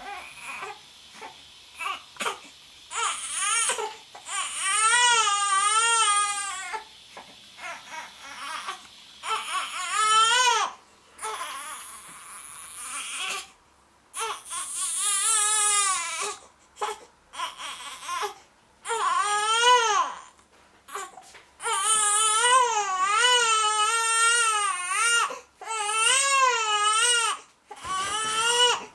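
Ten-day-old newborn crying in repeated bouts, each wail lasting a second or two with a wavering pitch, broken by short gasps and quieter fussing in between.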